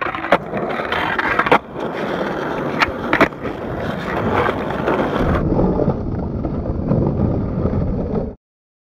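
Skateboard wheels rolling on rough asphalt, with a few sharp clacks in the first three seconds. The rolling noise cuts off suddenly near the end.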